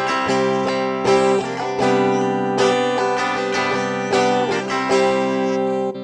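Clean electric guitar played through a Zoom G1Four multi-effects pedal on its Match Clean preset, a clean amp and 2x12 cabinet model. Chords are strummed and picked in quick succession and left ringing.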